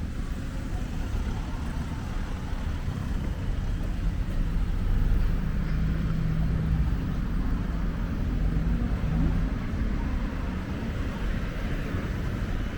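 Wind buffeting the microphone, a heavy fluctuating low rumble over outdoor city background noise. A faint steady engine hum rises out of it around the middle for a few seconds.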